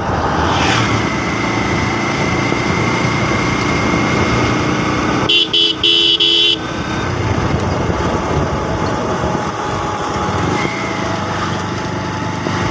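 Motorcycle on the move: wind rush and engine running steadily, with a vehicle horn blown in three short blasts about halfway through.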